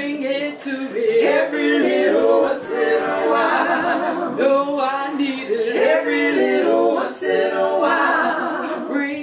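Three women singing a cappella in close harmony, with no instruments.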